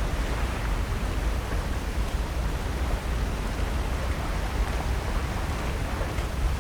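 Steady wash of ocean surf: an even hiss over a low rumble, with no single wave standing out.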